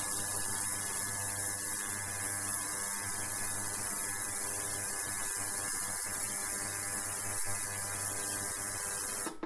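Ultrasonic cleaner's transducer running in a water-filled tank: a steady buzzing hum with a strong hiss that starts and cuts off abruptly. It is largely interference in the audio, which had been expected from the cleaner's roughly 20 kHz drive.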